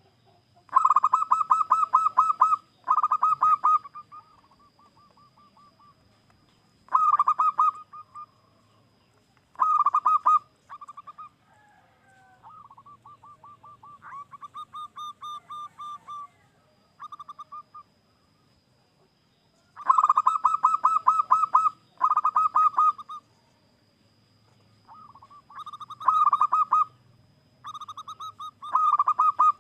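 Zebra dove (perkutut) singing: phrases of fast, staccato trilled coos, each lasting one to two seconds and repeated about ten times with short pauses between. A softer, longer trill runs through the middle.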